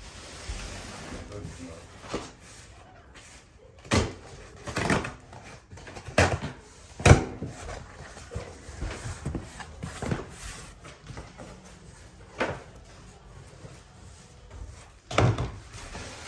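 A large cardboard shipping box being opened and handled: a string of sharp knocks and scrapes of cardboard and packing, irregularly spaced.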